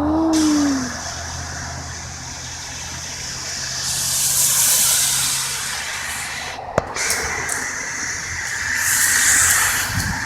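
Traffic passing on a slush-covered road: tyres hissing through wet snow, swelling as a vehicle passes about 4 seconds in and again near the end, over a low engine drone that fades out midway. A single sharp click sounds just before the 7-second mark.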